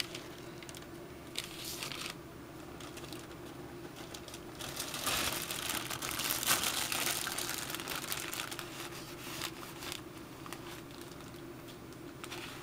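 A clear plastic bag worn over the hand as a makeshift glove, crinkling and rustling as the hand moves. It is loudest for a few seconds in the middle.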